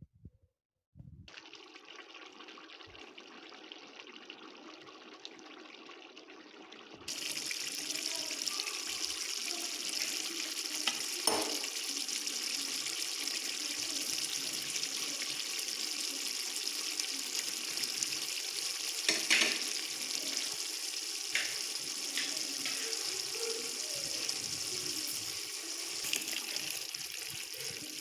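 Beef liver frying in a pan: a steady sizzling hiss that turns louder and brighter about seven seconds in, with a few sharp clicks.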